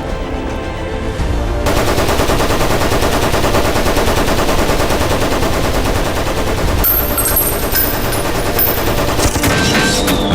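Sustained rapid machine-gun fire, a dense run of shots starting a little under two seconds in, with music underneath. A falling whistle-like tone begins just before the end.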